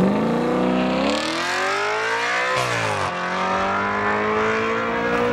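Audi RS5 B8's 4.2-litre V8 accelerating through a valved Fi Exhaust system, its pitch climbing steadily. About two and a half seconds in the pitch breaks and falls, then climbs again more slowly.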